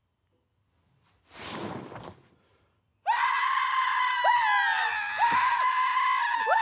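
Near silence, then a brief whoosh about a second and a half in as a bedsheet is pulled off. About three seconds in, a man breaks into a loud, long, high-pitched scream that is still going at the end.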